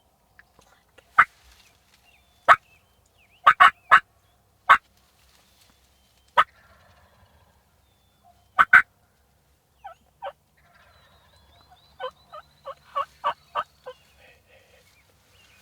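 Wild turkey toms gobbling, a series of short loud gobbles, some singly and some in quick pairs. Near the end comes a quick run of about seven shorter calls.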